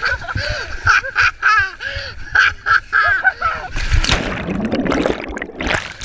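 Seawater splashing as swimmers wrestle, with excited voices in short repeated bursts over the first few seconds. A little under four seconds in, a dense rush of churning water takes over as the camera is plunged through the splashes.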